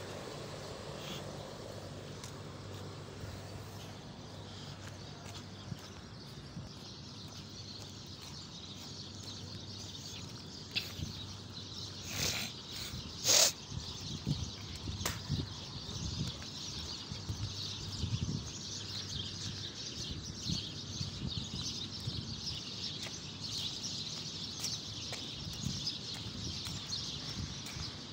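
Outdoor night ambience: a steady high chirring of insects, with a low machinery hum from the mill fading out over the first few seconds. Irregular footsteps on hard ground follow, and there is one sharp click about thirteen seconds in.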